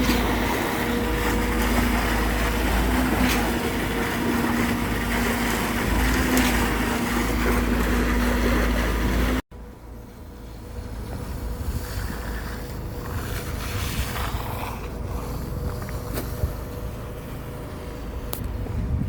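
A vehicle engine running steadily with a deep rumble and a constant hum. About halfway through it cuts off abruptly and is replaced by a quieter engine rumble with wind on the microphone.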